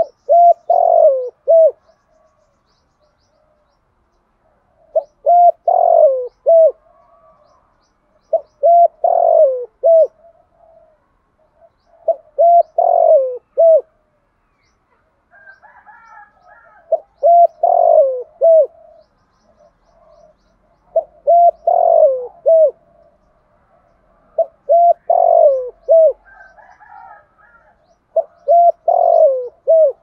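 Spotted dove cooing: a repeated phrase of a few short coos around one longer falling coo, given eight times at about four-second intervals. Faint chirps of other small birds come between some phrases.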